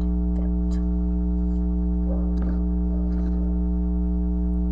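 Steady electrical hum with a low fundamental and a stack of overtones above it, unchanging throughout, with a few faint short clicks over it.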